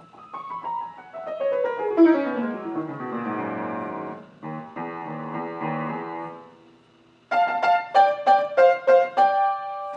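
Keyboard played with a piano sound: a falling run of notes, then held chords, and after a short pause near the end a quick tune of about ten notes.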